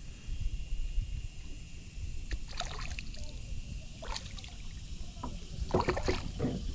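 Short bursts of water splashing, a hooked bass thrashing at the surface as it is fought in on rod and reel, over a steady low rumble.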